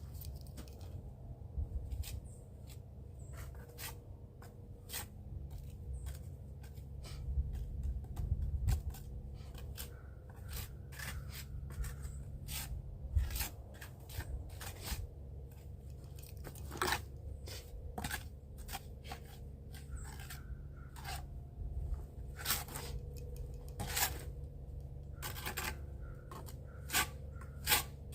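Irregular scrapes and sharp clicks of hands-on work at a building site, over a steady low hum.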